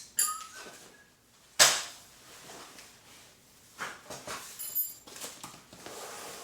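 Knocks and clicks of hard parts being handled during patio umbrella assembly, with one sharp knock about a second and a half in and short ringing clinks near the start and later on.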